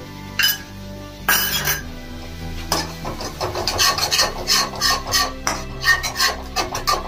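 Flat metal spatula scraping and stirring in a metal kadai, working curd into a thick masala paste: two scrapes near the start, then quick repeated strokes, about three or four a second, from about three seconds in. Soft background music runs underneath.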